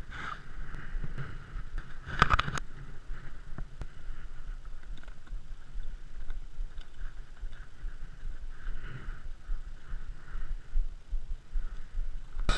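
Wind rumbling on the microphone, with faint handling noise from the rod and a plastic lure box being opened, and a short cluster of knocks about two seconds in.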